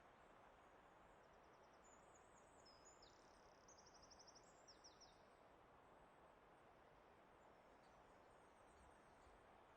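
A small songbird singing faint, high, rapid trilled phrases from about a second in to about five seconds in, over a faint steady hiss of forest ambience.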